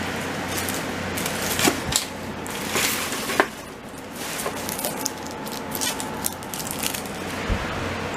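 Crinkling and rustling of a black plastic trash bag being handled, with scattered clicks and knocks, over a steady low hum.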